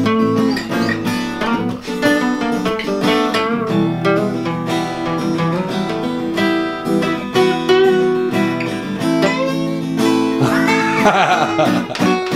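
Acoustic guitar being played live, a tune of quickly plucked and strummed notes.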